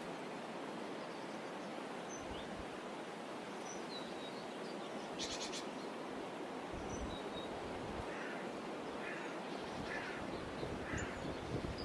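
Meadow ambience: a steady rushing noise with birds calling over it, in scattered short high chirps, a quick trill about five seconds in, and a few harsher calls near the end.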